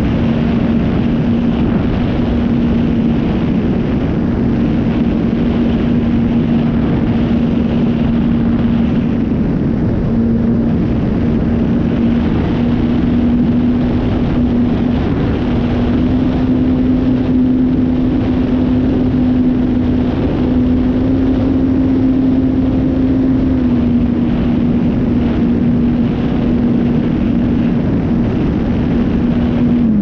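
Electric motor and propeller of an FMS 1300mm PA-18 Super Cub RC plane in flight: a steady humming whine that rises a little in pitch in the second half and settles back, over heavy wind rush on the onboard camera's microphone.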